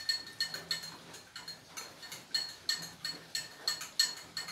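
Metal spoon stirring milk in a glass tumbler, clinking against the glass about three times a second, each clink leaving a short ringing tone.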